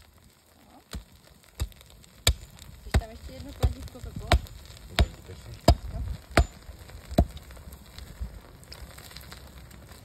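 Sledgehammer blows on a hot, freshly smelted bloomery iron bloom on a wooden stump, compacting the spongy iron: about ten steady strikes roughly two-thirds of a second apart. The blows stop about seven seconds in, leaving the crackle of the burning bloom.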